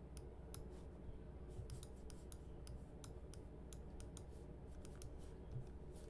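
Faint, irregular clicking of a computer mouse, its scroll wheel ticking as a page is scrolled, over a low steady hum.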